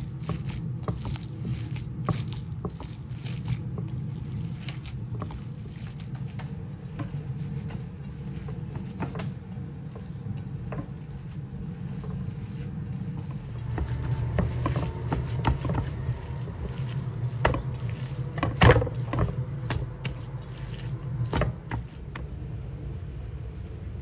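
Hands kneading and squeezing raw minced lamb mixed with onion and herbs: irregular wet squishing and slapping, busier in the second half, with one sharper slap a little before 19 s. A steady low hum runs underneath.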